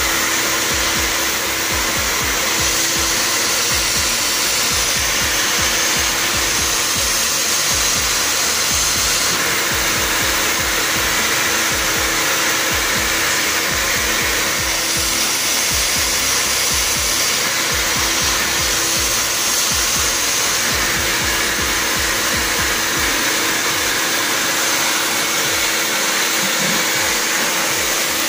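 Wet vacuum extractor running steadily with a loud, even rushing noise, its floor wand sucking water off wet tiles.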